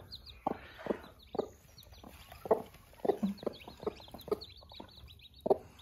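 Broody hens clucking in short, separate clucks every half second or so as they show their newly hatched chicks food, with the chicks peeping high and fast.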